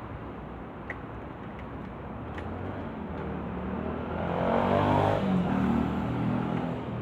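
Background rumble of a passing motor vehicle, swelling and then fading around five seconds in, with a few faint clicks in the first few seconds.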